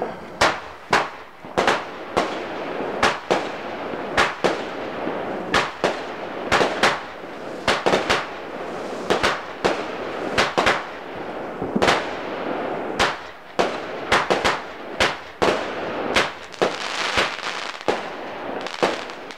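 Aces High consumer firework cake firing: a rapid, irregular barrage of sharp bangs, often several a second, over continuous crackling.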